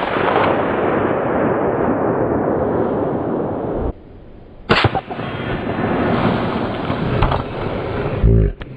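Suppressed 5.56 Mossberg MVP Patrol bolt-action rifle shots. The first report trails off in a long rumble of about four seconds, and a second sharp shot about five seconds in trails off the same way. Guitar music starts near the end.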